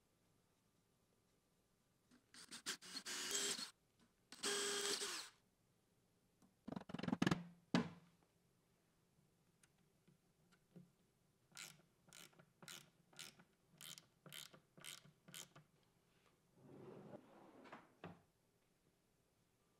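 Hand work on a plywood drawer front: two short rubbing strokes across the wood surface, a few knocks, then a run of about nine short clicks, about two a second, as a metal drawer pull is fitted. Near the end comes a soft wooden scraping of the drawer being moved.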